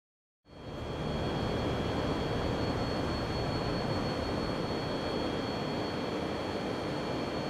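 A steady machine-like drone with a few thin high whining tones over it, starting suddenly about half a second in.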